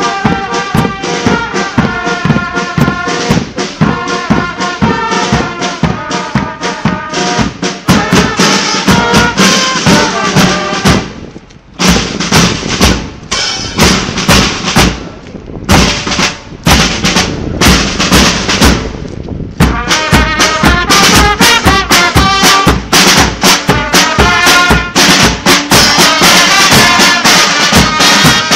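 Brass band music with trumpets and drums, dipping briefly a few times.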